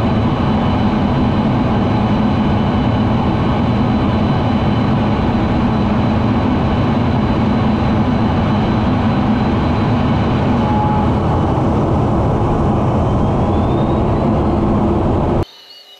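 Cockpit noise of an F-16 fighter jet in flight: engine and rushing air make a loud, steady noise heavy in the low end, which cuts off abruptly near the end.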